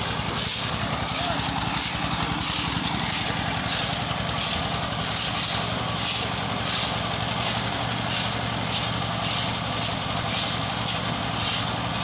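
Heavy machine engine running steadily at idle on a construction site, with short hissing or scraping noises coming over it about once or twice a second.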